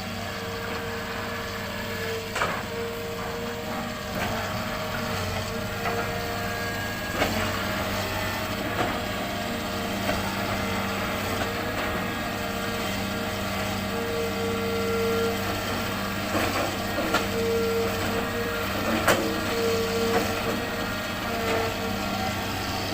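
Hitachi excavator's diesel engine running at a steady pitch, with scattered sharp clanks and knocks every second or two.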